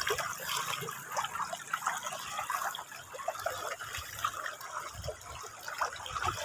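Shallow, clear stream trickling and bubbling over a bed of pebbles, a steady babble of small splashes.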